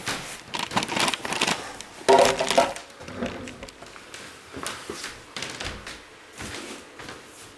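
Plastic bags and small objects rustling, crinkling and knocking as they are handled and packed into a box, with a short, loud squeak about two seconds in.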